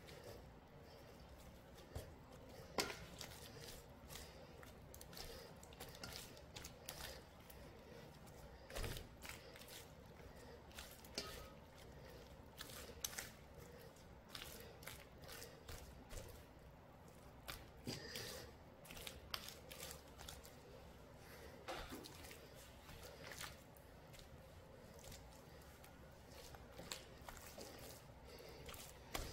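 Faint wet squishing and leaf rustling of hands working red chilli seasoning paste into salted napa cabbage leaves, with scattered small clicks and taps at irregular intervals.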